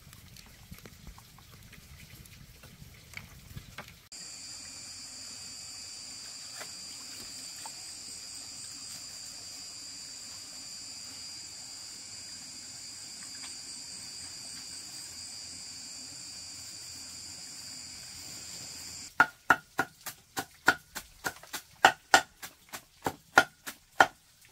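A steady, high insect buzz for about fifteen seconds, starting and stopping abruptly. Then a fast run of sharp, loud knocks, about four a second, near the end.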